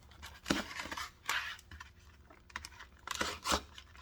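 Retail packaging of a small pocket LED flashlight being torn and pried open by hand: a few short scratching, rustling bursts with light clicks, about half a second in, again around a second and a half, and once more after three seconds.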